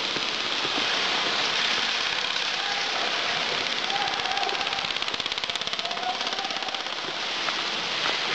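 Airsoft rifle firing a fast full-auto burst lasting about two seconds, near the middle, over a steady rushing noise.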